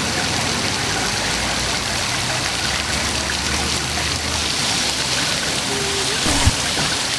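Fountain water jets spraying and splashing steadily onto wet pavement, an even rush of falling water, with one brief low knock near the end.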